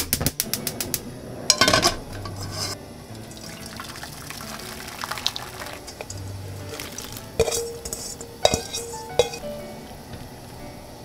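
Rapid clicking as a gas hob burner is lit, then water rushing into a frying pan. Near the end a utensil knocks three times against the metal pan as bitter melon slices are stirred in boiling water, over soft background music.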